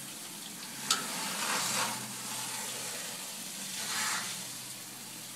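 Water spray from a Water Saber cleaning wand hissing and spattering inside a small residential boiler as it washes the carbon soot out. It gets louder twice, and there is one sharp click about a second in.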